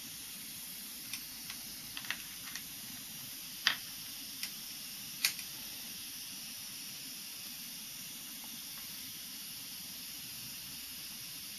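Several small clicks and taps from hands handling the wire connections and fittings on a small turbine's generator, most of them in the first five seconds. A steady faint hiss lies under them.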